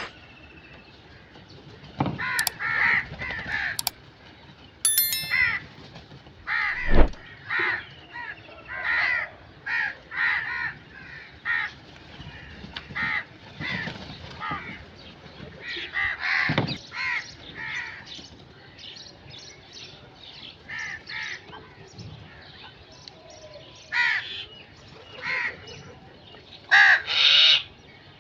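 Crows cawing again and again, short harsh calls coming singly and in quick runs. There is a thump about seven seconds in and a few sharp clicks in the first five seconds.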